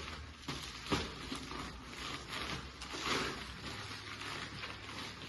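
Rustling and handling of packaging as the plaque is unpacked, in uneven swells, with a sharp tap or knock about a second in.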